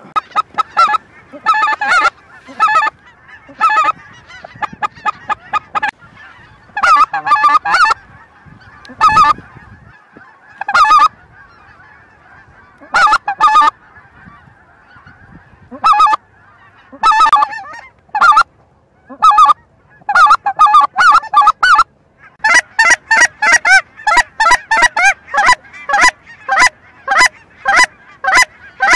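Geese honking: short, loud honks in clusters with brief gaps. They turn into a fast, even run of about three honks a second over the last seven seconds.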